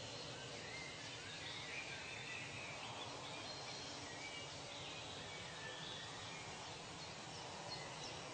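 Tropical forest ambience: a steady hiss of background noise with faint, scattered bird calls and chirps over it.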